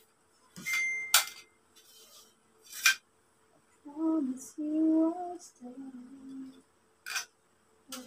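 Metal poles of a telescopic clothes rack knocking and clicking together as they are handled and fitted: several sharp clicks, one leaving a brief metallic ring. About halfway through, a woman's voice sings a few low notes.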